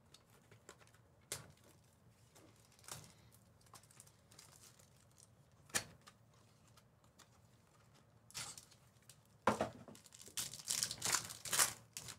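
Trading cards and their packaging being handled during a pack opening. There are a few light clicks and taps at first, then a run of crinkling and rustling over the last few seconds.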